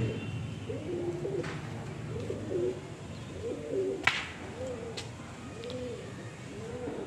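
Pigeons cooing over and over, one soft arched coo after another, with two sharp clicks about four and five seconds in.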